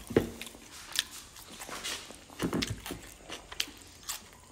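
Chewing and crunching of food, with scattered small clicks.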